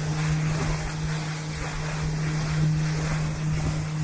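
Motorboat engine running at a steady drone as the boat cruises, with wind buffeting the microphone and the rush of water past the hull.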